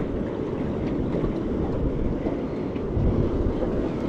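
Steady wind buffeting the microphone over choppy sea water.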